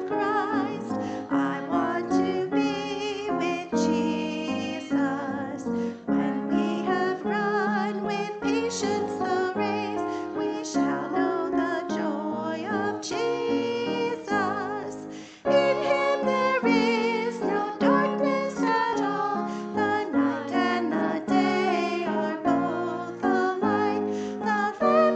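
Congregational hymn led by three female singers with piano accompaniment, with a brief pause between lines about halfway through.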